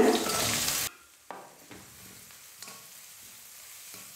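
Chopped onion hitting hot oil in a stainless steel kadai: a short loud sizzle that cuts off suddenly about a second in. After that a faint steady sizzle, with a few short scrapes and taps of a metal slotted spatula stirring the onion against the pan.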